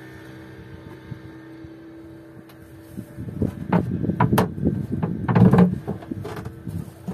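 Knocks, thuds and scrapes of gear being handled on the floor of a small wooden fishing boat, a cluster of them starting about three seconds in after a quieter stretch of steady faint hum.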